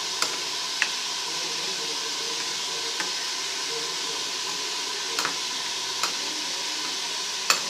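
Steady sizzling of mutton frying in oil, with a few sharp, irregular clicks of a spoon against a bowl.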